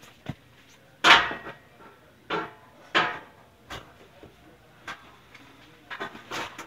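An irregular series of loud bangs and knocks, each ringing out briefly, the loudest about a second in.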